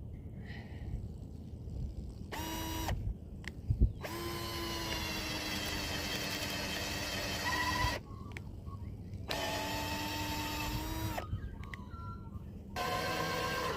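Small power drill running in bursts with a steady whine: a short blip, a run of about four seconds, another of about two seconds, and a fourth starting near the end.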